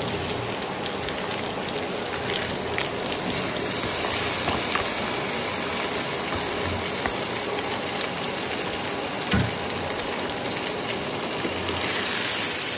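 Washed rice and lentils sizzling steadily as they fry in hot ghee in a non-stick kadai, with a few light scrapes and knocks of a wooden spatula. The sizzle grows louder near the end.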